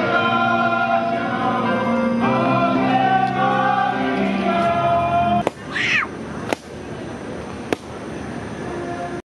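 Music with choir-style singing on long held notes, breaking off suddenly about five and a half seconds in. A quieter steady hiss follows, broken by a few sharp clicks.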